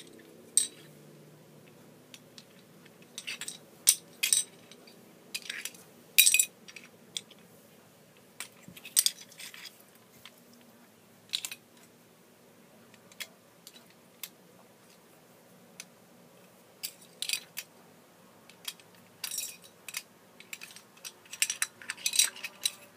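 Jenga blocks being stacked by hand into a tower: scattered, irregular sharp clacks as blocks are set down and knocked against each other, with quiet gaps between.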